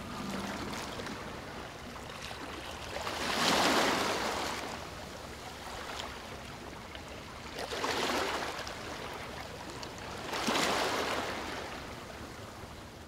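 Ocean waves washing, a steady rush of water with three louder swells of surf rolling in and drawing back, about three and a half, eight and ten and a half seconds in.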